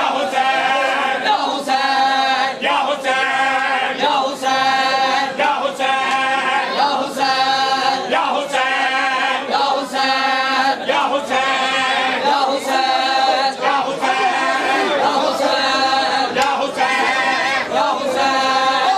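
A group of men chanting a Punjabi noha in chorus, one short line repeated over and over about every second and a half, with sharp slaps falling in a steady beat: the chest-beating of matam.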